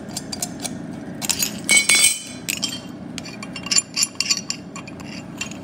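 Metal parts of a chrome Sloan flushometer valve clinking and knocking as the handle assembly is taken out and the valve body is handled on a concrete floor. There are many small clicks, with the loudest ringing clinks about two seconds in and again about four seconds in.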